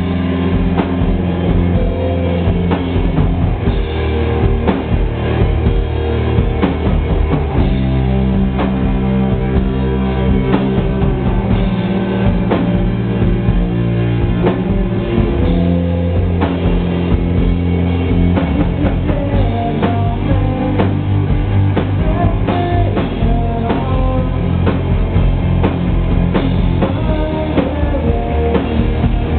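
Rock band playing live: drum kit keeping a steady beat under sustained electric guitar and bass chords.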